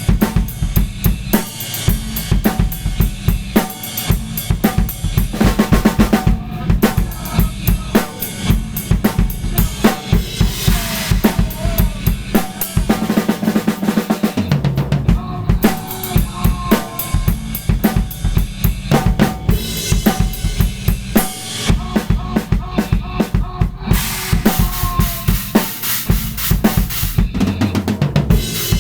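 Drum kit played in a fast free improvisation: busy kick drum and snare strokes with rimshots, and cymbal washes in a couple of stretches.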